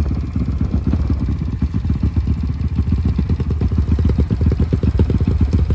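Motocross bike's engine running at low revs as the bike rolls slowly, with an even, fast pulsing beat.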